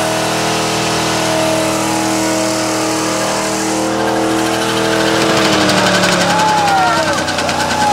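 Car engine held at high revs through a tyre-smoking burnout, with the tyres spinning against the pavement. About five seconds in, the engine note drops lower.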